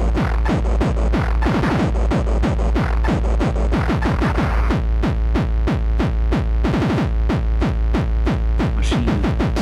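Electronic techno music: a fast, steady kick drum, about four beats a second, under a dense, harsh synthesizer layer.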